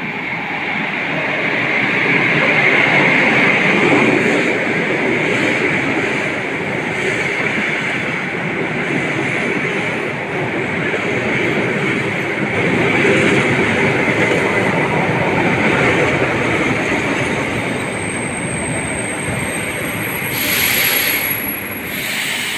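ED4M electric multiple unit running along the track: a steady, loud rumble and hiss of wheels on the rails. A short burst of high hiss comes near the end.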